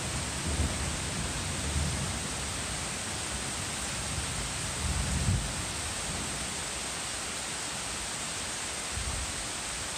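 Heavy rain pouring steadily onto trees and grass, an even, dense hiss. A few brief low bumps come through, the strongest about five seconds in.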